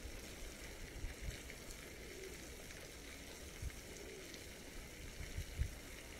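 Faint, steady splashing hiss of a water fountain, broken by a few short low thumps.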